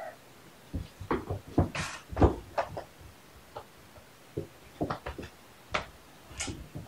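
Young kittens scampering and pouncing around their play furniture: a string of irregular thumps and knocks, the loudest a little past two seconds in.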